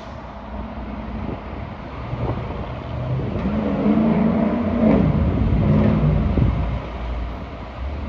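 Fire ladder truck going by on a call. Its heavy engine rumble builds to a peak about five seconds in and then eases off, with short, steady low blasts of its air horn in the middle.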